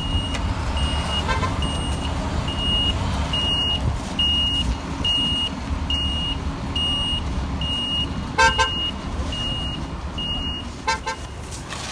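Steady low street-traffic rumble with an electronic beeper sounding one high tone about twice a second, stopping near the end. A car horn gives a short, loud honk about two-thirds of the way in and two quicker toots near the end.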